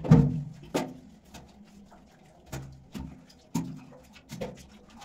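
Scattered knocks and water splashes echoing in a small, bare concrete tank as its floor is washed out by hand with a plastic bucket. The loudest splash comes right at the start, and several lighter knocks follow.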